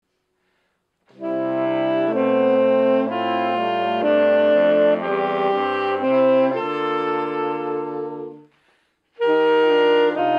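Saxophone quartet playing slow, held four-part chords, with a soprano saxophone on top; the harmony changes about once a second. The playing starts about a second in, stops briefly near the end and comes back in.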